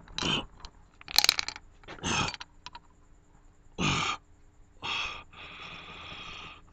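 A man making short croaking, grunting vocal noises, several in a row with the pitch sliding down, as a bug-creature impression. A brief clatter comes about a second in, and a steady hiss near the end.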